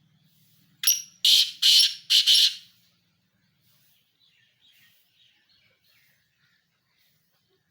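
Pheasant calling: a quick run of four loud, harsh calls about a second in, the last one doubled, followed by faint chirps.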